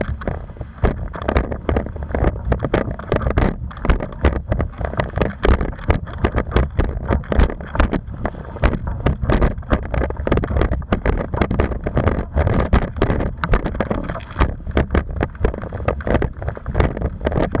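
Wind rushing over the microphone as a Goya FXR 125 windsurf board planes fast across choppy water, the hull knocking on the chop in rapid, irregular hits.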